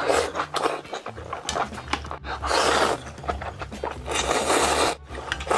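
Ramen noodles being slurped noisily from a ladle in three long sucking slurps, the last about a second long, with short breaths between.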